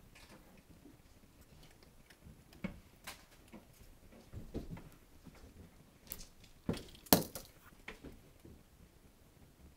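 Scattered light knocks and rustles as a kitten moves about a carpeted cat tree close to the phone, with a sharper knock about seven seconds in.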